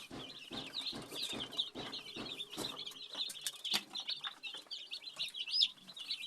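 Many chicks peeping continuously in a dense chorus of short, high chirps. Scattered soft knocks and taps run through the first few seconds, with one sharper knock just past the middle.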